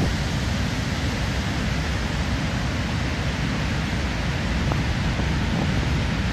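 Large waterfall and the swollen river rapids below it: a loud, steady rush of water, heaviest in the low end.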